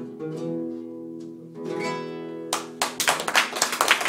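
Acoustic guitar rings out the final held notes of a song. About two and a half seconds in, applause breaks out and is louder than the guitar.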